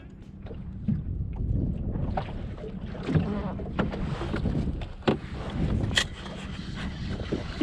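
Water slapping against a small boat's hull with wind buffeting the microphone, broken by a handful of sharp knocks and clicks, the loudest about six seconds in.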